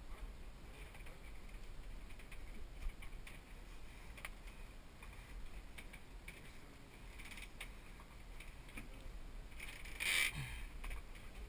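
Scattered light clicks and knocks of gear being handled, with one brief louder rustle near the end.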